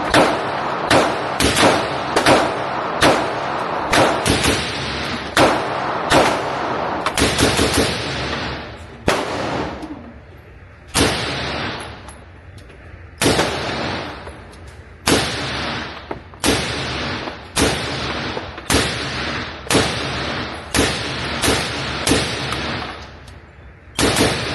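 Gunshots at an indoor shooting range, echoing off the walls. They fire in quick succession for the first several seconds, then slow to roughly one shot a second.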